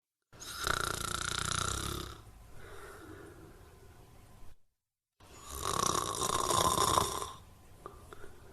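A person snoring: two loud snores about five seconds apart, each lasting about two seconds and followed by a quieter breath out, with a brief total silence between them.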